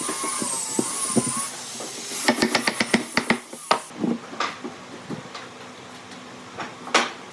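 A wavering high whine over a hiss for the first second and a half, then a quick run of about a dozen sharp taps and a few scattered knocks, like tools and wood being handled in a workshop.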